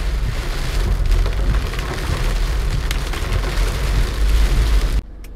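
Car cabin noise while driving in heavy rain: a loud, deep rumble of road and engine with rain drumming on the windshield and roof. It cuts off abruptly near the end.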